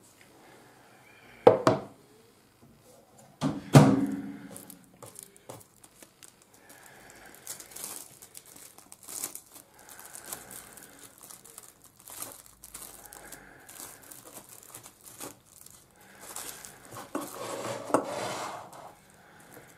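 A ceramic cup knocks on the table twice, sharply. Then plastic cling film crinkles for several seconds as it is pulled off the roll and stretched over the cup's rim.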